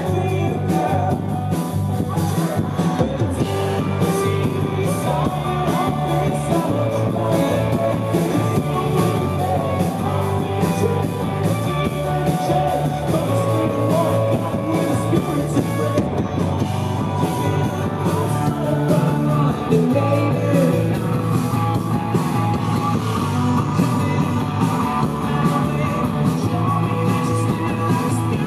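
Live rock band playing loud, with electric guitars, drums and a singer's voice, heard from the audience in a concert hall.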